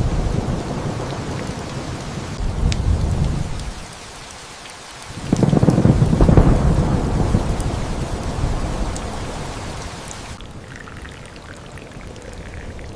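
Thunder rumbling over steady rain. A fresh thunderclap breaks about five seconds in and rolls away over several seconds, leaving the rain hiss.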